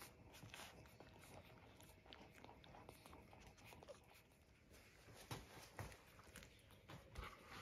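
Near silence with faint, scattered small clicks and smacks: two-week-old puppies suckling at the mother dog.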